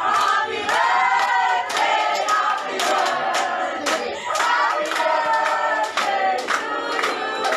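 A group of people singing together while clapping in time, roughly two claps a second.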